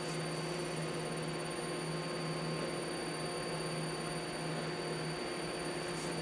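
Steady mechanical hum and hiss of bakery machinery running, with several constant tones over an even rushing noise.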